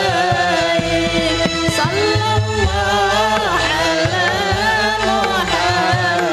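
Sholawat, Islamic devotional song: a singing voice in a winding melody over hand-drum beats.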